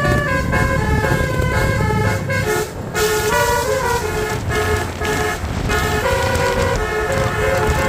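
Tour bus's basuri (telolet) multi-trumpet air horn playing a melody, one note after another a few times a second, with a brief break a little under three seconds in. A low rumble runs underneath.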